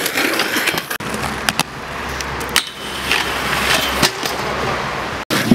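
Inline skate wheels rolling on asphalt, broken by several sharp clacks of skates striking the ground or obstacles.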